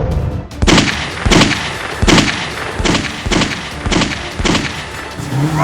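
A series of about seven sharp bangs, roughly one every two-thirds of a second, starting about a second in.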